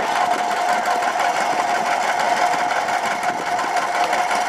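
1924 Wood Brothers grain thresher running, belt-driven from a tractor: a steady, fast mechanical clatter with a steady whine held over it.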